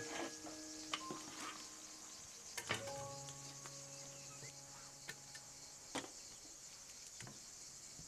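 A few light metallic clinks of kitchen tongs against a ridged grill pan and a metal dish as fried fish pieces are laid in, the sharpest about two-thirds of the way through and near the end, over a faint steady high hiss.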